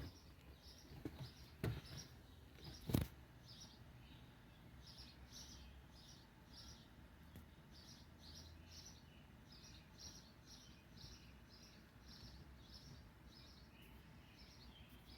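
A sharp knock about three seconds in, then faint bird chirps, a short high chirp repeated about twice a second.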